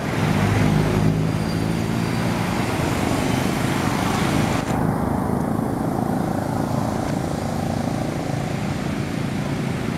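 A motor vehicle running close by, with an engine hum over steady road and traffic noise; the engine note is clearest in the first couple of seconds.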